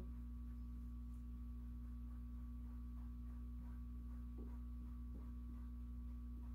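Steady low hum with a faint steady higher tone over it: room tone, with nothing else standing out.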